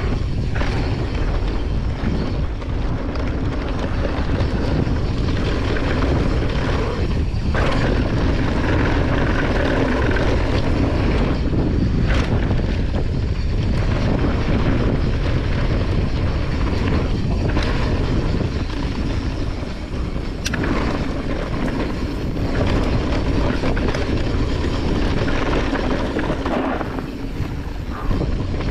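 Wind rushing over the microphone and knobby tyres rolling over a dirt trail as a mountain bike descends. The rumble is steady and heavy in the low end, dipping briefly now and then.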